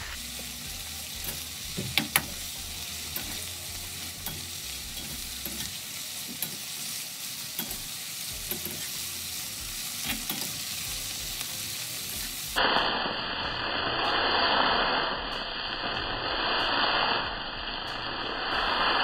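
Chicken, green pepper and onion sizzling in a wok while being stirred with a metal spatula and tongs, with a few sharp clicks of metal on the pan. About two-thirds through it cuts to a louder sizzle that swells and fades several times as the wok is tossed.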